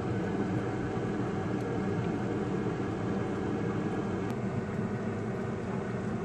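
Steady whirring hum of a running kitchen appliance fan, with two faint clicks partway through.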